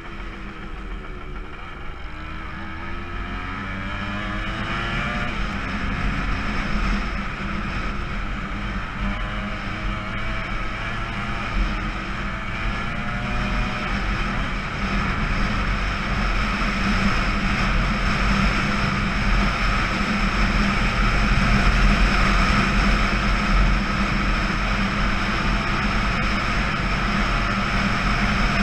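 Kawasaki KE100's single-cylinder two-stroke engine revving up and down through the gears, then running steadily at speed, getting louder as the bike speeds up.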